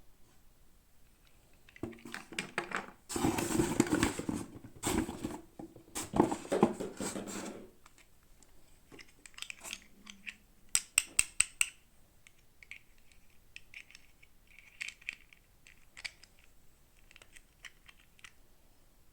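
Toy packaging being handled and opened: a loud stretch of crinkling and rustling for several seconds, then a quick run of about six sharp plastic clicks, followed by scattered light taps and soft rustles.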